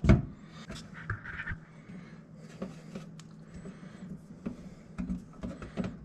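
A sharp knock against a stainless steel sink right at the start, then faint taps, clicks and handling noises as hands work around the sink's drain opening.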